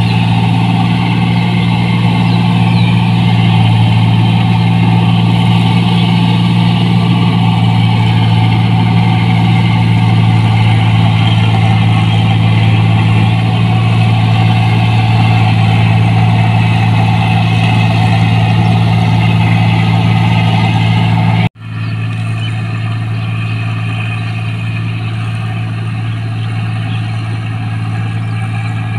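New Holland 1545 combine harvester's diesel engine running steadily under load while harvesting rice, a loud, even low drone with the threshing machinery's noise on top. About two-thirds of the way through, the sound cuts out for an instant and returns slightly quieter.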